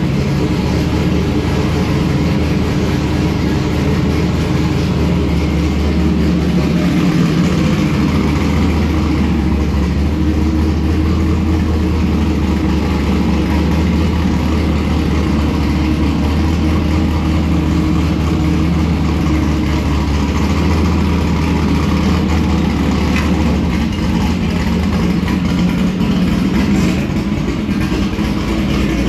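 Forced-induction drag-racing Chevy Nova engine idling steadily while it warms up after its first start of the season, its low note shifting slightly about seven seconds in and again near the end.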